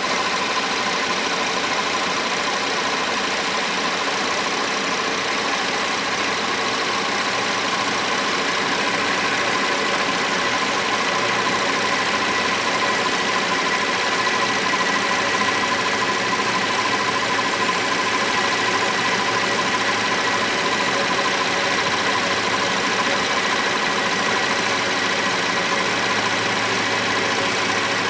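2016 Cadillac SRX engine idling steadily with the AC compressor engaged, heard under the open hood, with a faint steady whine over the running noise.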